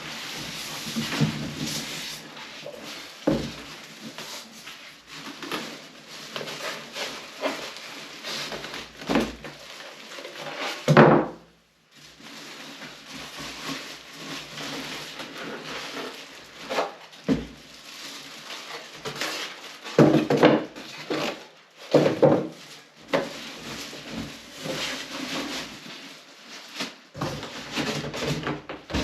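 A PC case being worked out of its cardboard shipping box and packing: irregular scraping, rustling and knocks. The loudest is a single thump about eleven seconds in.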